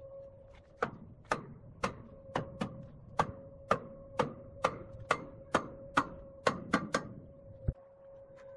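A hammer striking the steel tool-rest frame of a large wood lathe: about fifteen sharp knocks, roughly two a second, setting the rest into position. A faint steady hum runs underneath.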